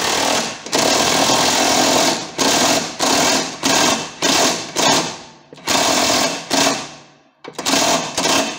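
Pneumatic impact wrench hammering in a series of short bursts with brief pauses, with one last burst near the end after a longer pause, as it tightens the outer pivot bolt of a Fiat Panda's rear suspension arm.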